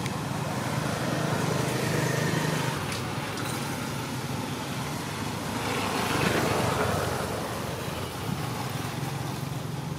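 A motor engine running steadily in the background, swelling a little louder for about a second around six seconds in.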